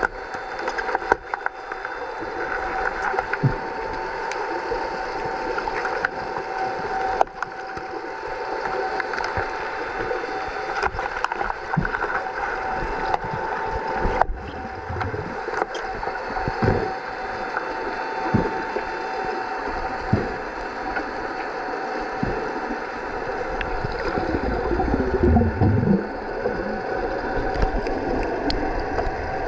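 Underwater hockey play heard through an underwater microphone: a steady hum with a couple of held tones, scattered sharp clicks and knocks from sticks and puck on the pool floor, and a burst of bubbling gurgles near the end.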